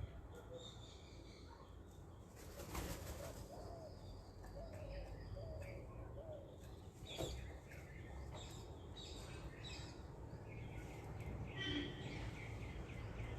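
Birds at a feeding spot: a few brief flurries of wing flaps, soft low cooing in between, and small high chirps near the end.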